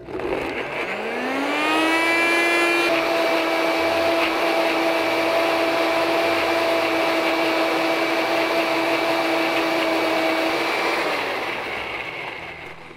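NutriBullet Balance personal blender motor running while the cup is pressed down, blending apple chunks and mint leaves with a little almond milk into a purée. The whine rises in pitch over about two seconds as the motor comes up to speed, holds steady, then winds down about eleven seconds in as the cup is released.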